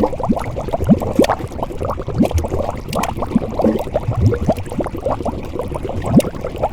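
Liquid boiling and bubbling vigorously: a dense, continuous stream of bubbles popping, each a short rising blip.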